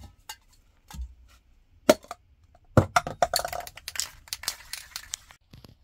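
Metal aerosol spray paint cans clinking against each other as one is taken off a shelf, then a can shaken hard, its mixing ball rattling quickly for about two seconds.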